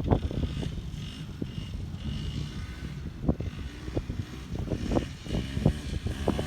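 Vehicle engine running, with irregular sharp knocks and rattles over a low rumble that grows louder toward the end.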